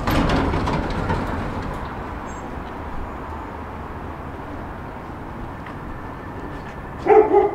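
Metro lift doors sliding open onto the street, letting in a sudden rush of traffic noise that eases over about two seconds into a steady rumble. Near the end there is a short, loud pitched sound.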